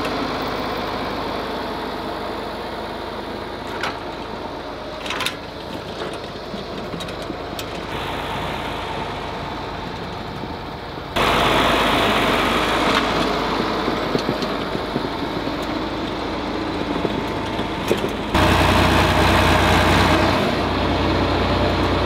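John Deere 4020 tractor's six-cylinder diesel engine running steadily at low speed while towing, with a couple of light clicks about four and five seconds in. The sound jumps abruptly louder twice, about eleven and eighteen seconds in.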